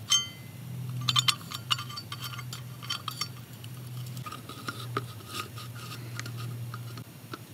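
Metal end cap and screw of an ATV air filter being fitted together by hand: light metallic clinks and scrapes, thickest in the first few seconds, then scattered ticks as the screw is turned with a screwdriver.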